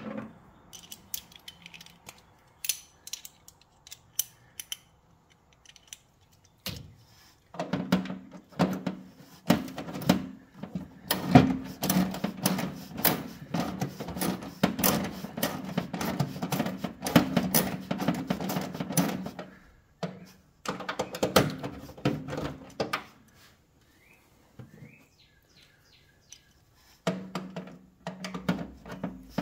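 Hand ratchet clicking rapidly as a half-inch fender bolt is backed out, in three runs: a long one of about twelve seconds starting a few seconds in, a short one after a brief pause, and another near the end. Before the first run there are only a few scattered tool clicks.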